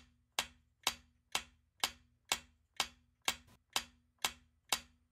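Countdown timer sound effect: even, clock-like ticks, about two a second.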